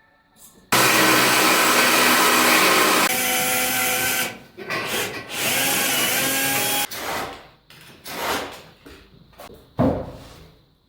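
An electric drill or similar power tool running at full speed, stopping about four seconds in, then starting again for a couple of seconds; after it stops, a few knocks and scrapes follow.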